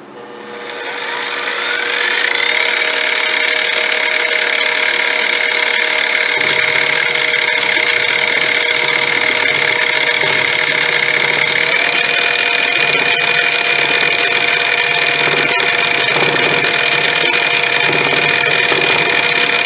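Milling machine motor and spindle spinning up over about two seconds with a rising whine, then running steadily; about twelve seconds in, the whine steps up slightly in pitch.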